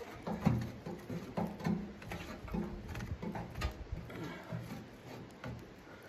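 A wooden stick knocking and scraping inside a small steel wood stove's firebox and raking through charcoal and ash: a run of sharp knocks and clatters, the loudest about half a second in. A low pitched sound comes and goes underneath.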